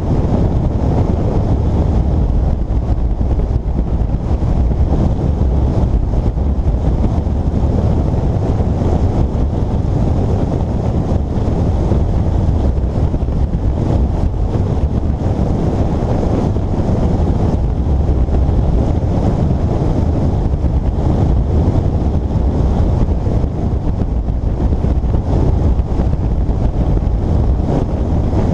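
Steady wind buffeting the microphone at road speed on a 2006 Yamaha FJR1300 sport-touring motorcycle, with the bike's running engine and road noise underneath.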